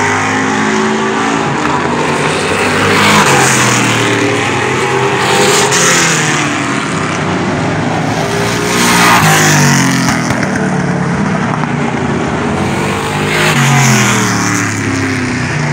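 Several stock cars racing around a short oval, their engines running hard and overlapping. Cars swell past and fade about three, six, nine and fourteen seconds in, with the engine pitch rising and falling on each pass.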